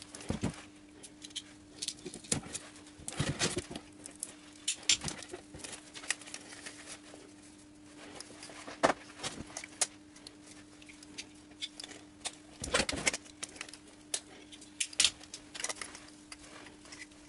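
Handling noise from coiled rubber water hoses with plastic quick-connectors being lifted, uncoiled and turned over in a foam-lined cardboard box: scattered rustles, knocks and clicks, denser at a few moments. A faint steady hum runs underneath.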